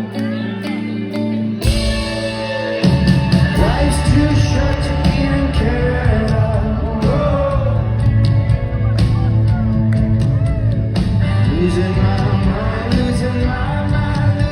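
Rock music with a singer, played loud: sustained notes under a sung line at first, then the full band with drums comes in strongly about three seconds in.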